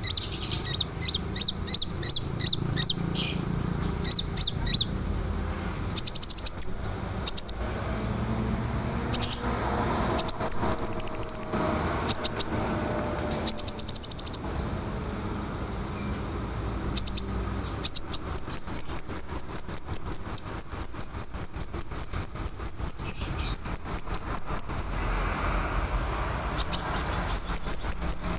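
Scarlet minivet singing in full voice, giving runs of short, sharp, high chirps, with a long fast series of evenly repeated notes through the second half.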